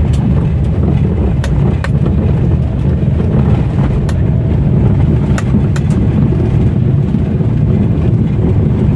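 Old-model Maruti Alto's front suspension knocking and clunking, several sharp knocks at uneven intervals, as the wheels drop into potholes on a rough road. The knocks come from worn front suspension with play in the lower-arm and steering ball joints. Under them is a steady rumble of tyres and engine heard inside the cabin.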